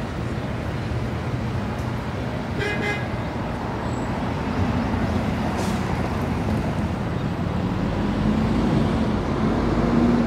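Street traffic noise: a steady road rumble with a brief horn toot about three seconds in, then a vehicle's engine growing louder through the second half.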